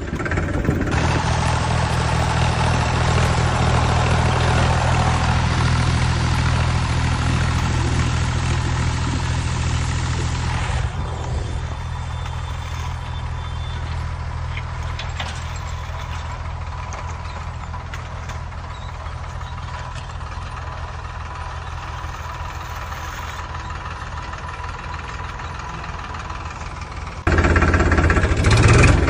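Steady engine-like idling drone, low and even. It drops in level about eleven seconds in and comes back louder near the end.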